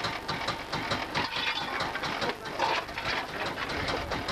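Cab of a 15-inch-gauge steam locomotive: a steady hiss with frequent irregular metallic clanks and clicks from the footplate as the crew work the controls and fire irons.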